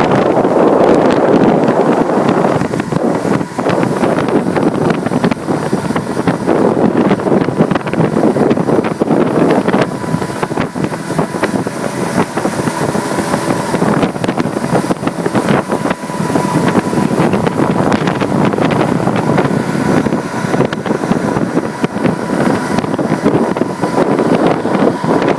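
Suzuki DF70 four-stroke outboard motor running steadily as the fishing boat moves under way, with wind buffeting the microphone.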